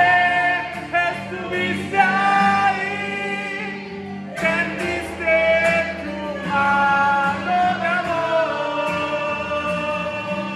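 Live Spanish-language worship song: a man sings long held notes over a strummed acoustic guitar, with women's backing vocals, pausing briefly about four seconds in before the next line.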